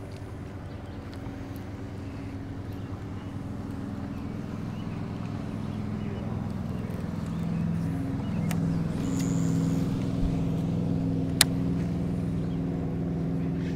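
A boat motor running steadily and growing slowly louder, its pitch shifting about eight seconds in. A single sharp click comes near the end.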